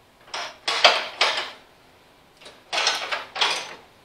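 A control lever on a John Deere 185 lawn tractor worked back and forth through its newly fitted plastic bezel: short sliding, clacking strokes, three in a quick group and three more about a second later.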